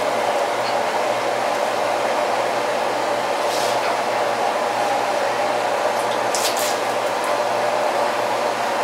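Steady whir of an electric fan, such as a kitchen exhaust fan, with a low hum underneath. A couple of faint light clicks come about 3.5 and 6.5 seconds in.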